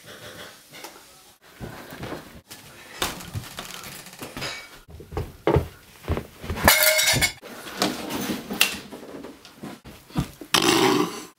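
A cowbell clanking and rattling in irregular bursts among scattered knocks, with the loudest clatters about two-thirds of the way through and again near the end.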